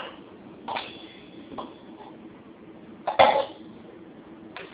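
Stainless steel kitchen vessels clinking against each other, one ringing on briefly, with a louder short sound about three seconds in.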